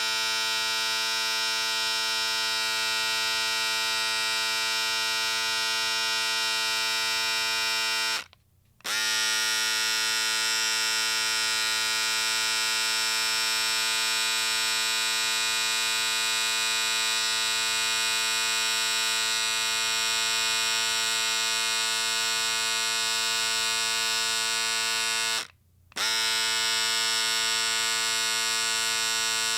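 Electric shaver running with a steady buzz. It is switched off briefly twice, about 8 seconds in and again near 26 seconds, and each time it comes back with a short rise in pitch as the motor spins up.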